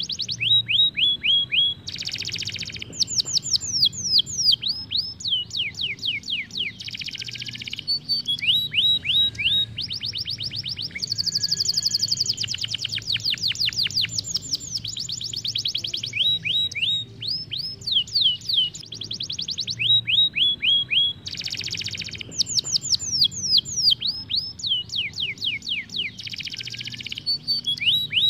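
Isabel canary singing a long, continuous rolling song: fast trills of repeated down-slurred notes, broken by a few short harsh buzzy phrases, with an especially dense high trill around the middle.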